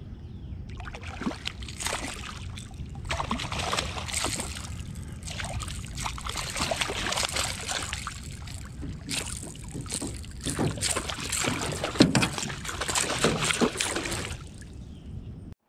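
A hooked fish thrashing and splashing at the water's surface right beside the boat as it is brought to hand, a run of irregular splashes and slaps with the loudest hit about twelve seconds in.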